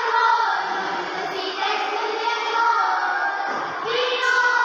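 Children's voices singing together, amplified through a microphone, with held notes.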